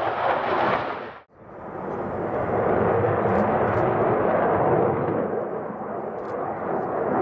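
Aircraft engine noise, a steady rushing roar with no clear pitch, cut off abruptly about a second in and then fading back up to the same level.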